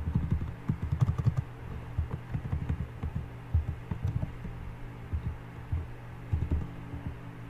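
Computer keyboard being typed on: irregular keystrokes in short runs with brief pauses between them, over a steady low hum.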